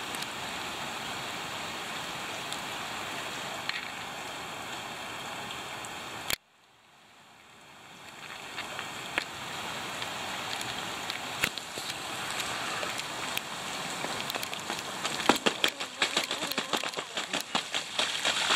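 Steady rain pattering into a puddle, broken off abruptly about six seconds in. The rain sound then fades back in on wet pavement and grows heavier, ending in a dense, sharp patter of drops striking close by.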